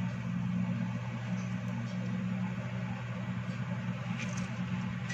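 Steady low background hum, with a faint snap about four seconds in as a bearded dragon lunges and grabs a silkworm from plastic feeding tweezers.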